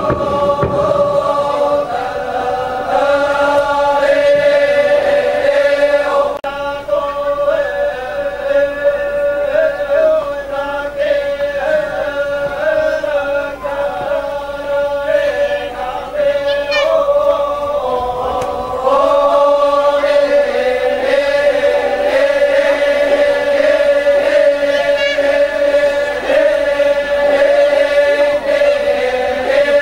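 A group of voices chanting together in a slow, drawn-out chant, holding one steady pitch beneath shifting higher parts.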